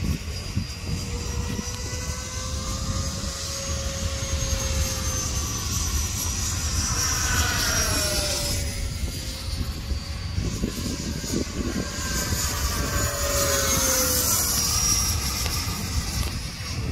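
Mirage delta-wing jet in flight, its engine whine steady, then sliding down in pitch as it passes, twice: about 8 seconds in and again around 15 seconds.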